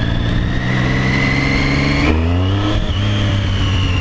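Motorcycle engine pulling under acceleration: the revs climb, drop sharply at a gear change about two seconds in, climb again briefly, then ease off slowly.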